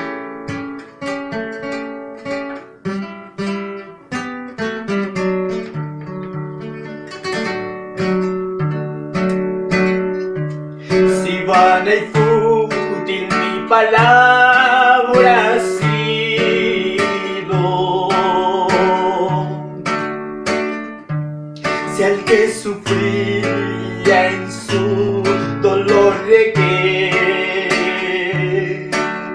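Nylon-string classical guitar played fingerstyle, plucked notes alone at first; about eleven seconds in, a man's singing voice with vibrato joins over the guitar.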